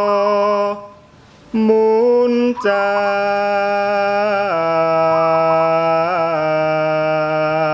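Male voice chanting a Javanese kidung (tembang), holding long steady drawn-out notes. It breaks off for a breath about a second in, returns on a higher note that steps up, and drops to a lower held note past the middle. Faint zebra dove (perkutut) coos recur every few seconds behind the voice.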